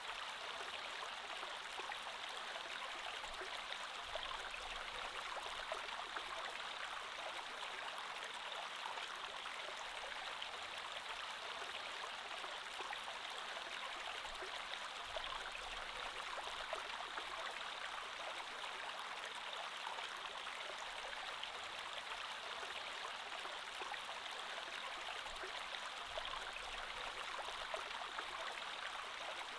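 Creek water flowing steadily over stones, an even rushing and babbling with no pauses.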